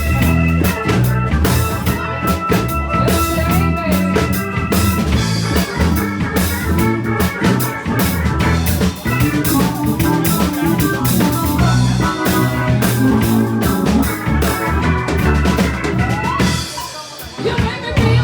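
Band music with a drum kit keeping a steady beat under held instrument notes, without singing; the level dips briefly near the end.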